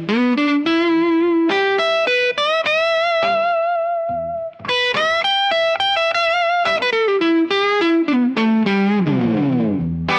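Slow blues instrumental with an electric guitar lead playing a single-note melody. Long held notes waver with vibrato, and near the end the notes glide downward in pitch.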